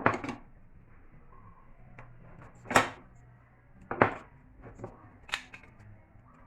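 Four sharp, short knocks of hard objects set down or struck on a work surface, spaced a second or more apart, over a faint low hum.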